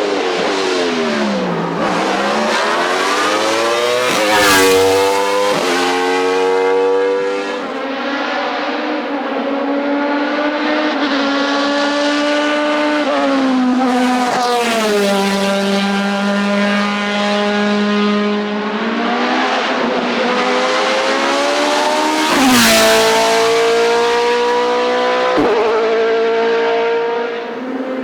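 Hillclimb race car engine working hard: the revs drop steeply at the start, then climb through several gear changes, ease off and build again, with a few sharp cracks along the way.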